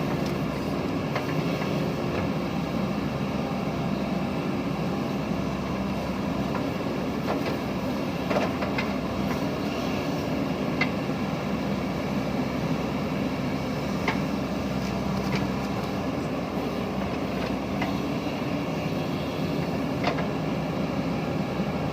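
Diesel engine of a JCB backhoe loader running steadily under working load, with a few faint knocks scattered through.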